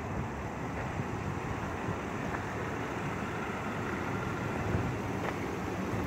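Steady low vehicle rumble, with no distinct events.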